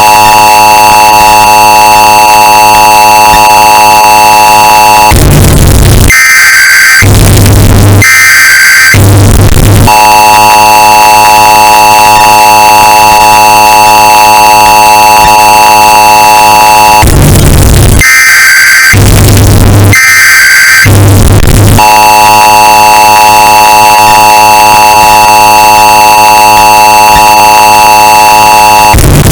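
Emergency Alert System alert, bass-boosted and clipped to a harsh distorted blare. The steady two-tone attention signal holds for about seven seconds, then breaks into a few short buzzing data bursts, and the sequence repeats about every twelve seconds.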